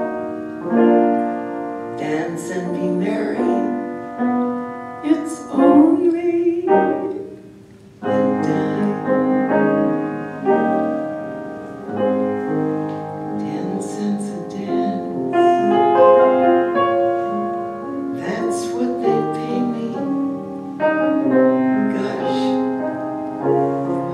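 Solo piano playing an instrumental passage of a ballad, with sustained chords and melody and a brief pause about eight seconds in.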